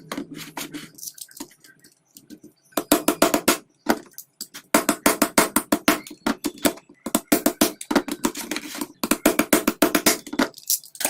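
Rapid runs of sharp knocks and clicks on a laptop charger's plastic case as it is worked open, in four bursts of several knocks a second.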